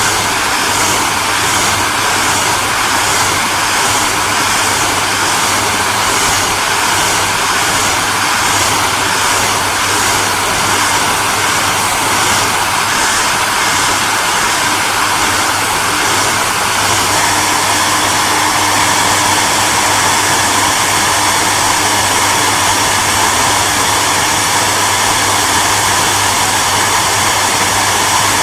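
Hairdryer running continuously: a steady rush of blown air over a low motor hum. A little over halfway through, its tone shifts slightly and becomes a touch louder and smoother.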